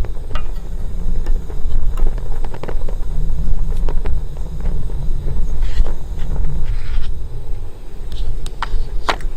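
Wind buffeting the microphone, a loud, uneven low rumble, with scattered small clicks and knocks.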